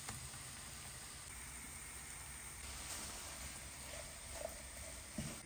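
Food frying in a pan: a steady oil sizzle as rice cakes fry, then tuna and peas sizzling as they are stirred with a wooden spatula.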